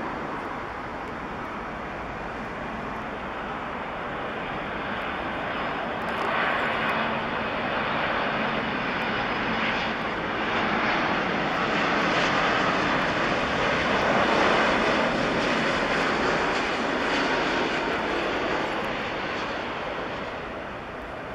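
Boeing 787-8 jet engines on final approach, passing low overhead. The roar swells from about a third of the way in, peaks past the middle, then fades near the end as the airliner goes by.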